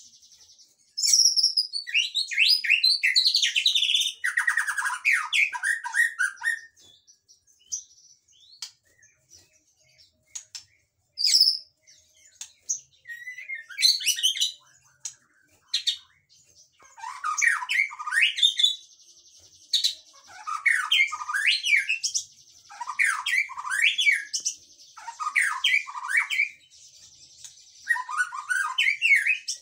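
White-rumped shama singing: short, quick phrases of chirps and sliding whistles, dense at first, sparse for several seconds in the middle, then phrase after phrase with brief pauses in the second half.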